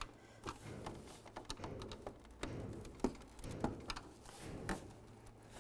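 Flat-blade screwdriver prying the Cadillac Escalade's plastic grille clips loose from the bumper cover: a scatter of faint plastic clicks, about seven, with light rubbing between them.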